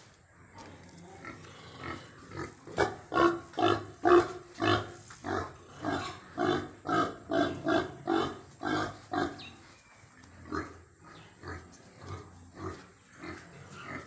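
Domestic pig grunting: a quick, even run of short grunts, about two a second, starting a couple of seconds in and loudest early on, then thinning out to a few spaced grunts after the middle.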